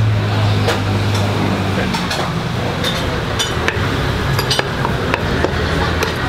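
A metal spatula clinking and scraping against a wok as swamp eel is stir-fried, in sharp, irregular clinks that come more often in the second half. A steady low hum from the cooking station runs underneath and is strongest in the first two seconds.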